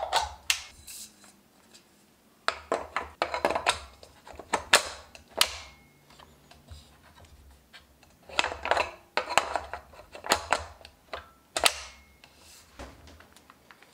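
Hands handling a Godox Litemons LA200D LED video light on its stand: scattered clusters of clicks, knocks and rubbing of hard plastic and metal parts, with quieter gaps between them.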